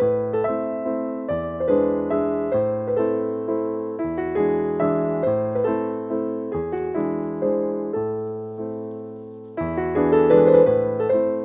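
Background piano music: a gentle melody and chords played in an even rhythm.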